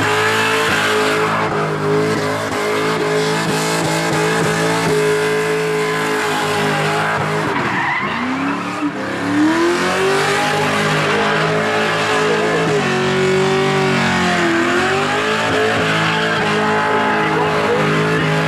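Holden Commodore V8 held at high revs during a burnout, with the rear tyres squealing as they spin. The revs dip briefly about eight seconds in, sag again a few seconds later, then climb back.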